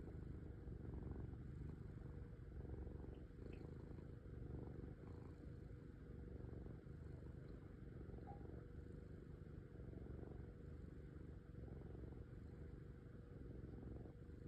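Domestic cat purring steadily, the low purr swelling and easing gently with its breathing.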